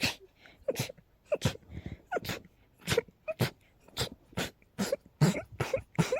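A person sneezing over and over in rapid succession, about a dozen short sneezes roughly half a second apart, coming a little faster toward the end. It is a sneezing fit that the uploader puts down to a cold on top of high pollen and dust.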